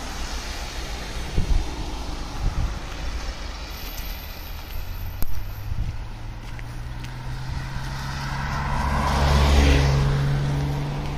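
Car passing close on a wet, slushy road: engine hum and tyre hiss swell to a peak about nine to ten seconds in and then fade, over steady background road traffic.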